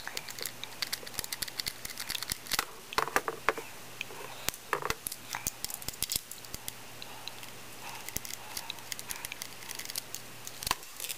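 Phillips screwdriver unscrewing small screws from a 2.5-inch hard drive's metal mounting bracket: irregular small clicks, scrapes and handling noise as the screws are turned out.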